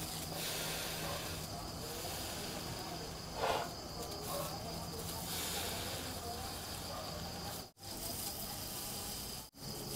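Burger buns toasting face-down in butter on a grill pan: a low, steady sizzling hiss, with crickets chirping steadily behind it. A short rustle comes about three and a half seconds in, and the sound cuts out briefly twice near the end.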